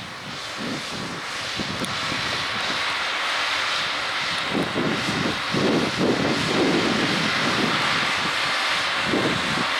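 John Deere 6R 185 tractor's six-cylinder diesel working under load as it pulls a six-furrow plough. It grows louder over the first few seconds as it comes closer, then runs steadily loud.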